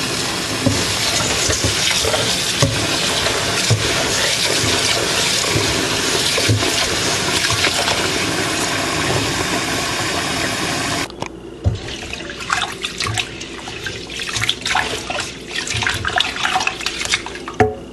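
Kitchen tap running in a steady rush into a pot of rice, shut off sharply about 11 seconds in. Then comes irregular splashing and sloshing as the parboiled brown rice is swished about in the water to wash it.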